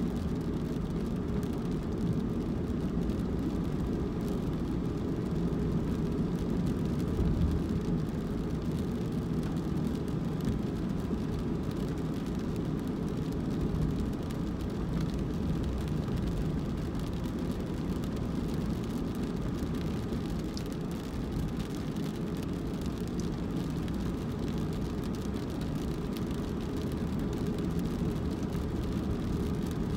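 A car driving: a steady low rumble of engine and road noise.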